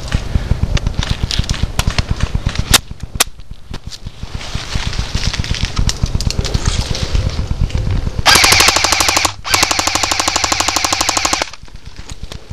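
Airsoft guns firing rapid full-auto bursts, a fast run of sharp clicks. Quieter volleys trade back and forth at first, then a loud close burst starts about eight seconds in and runs about three seconds with one brief break.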